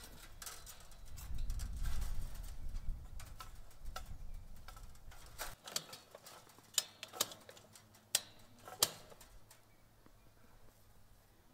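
Hand-tool work on high-tensile electric fence wire being joined and crimped: scattered sharp clicks and ticks, the four loudest close together a little after halfway. A low rumble runs through the first half and stops suddenly.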